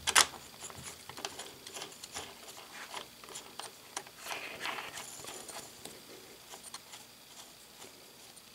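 Light clicks and scraping of a 3D-printed plastic dial being slid and turned by hand onto a lathe's cross-slide screw, with one sharper click right at the start.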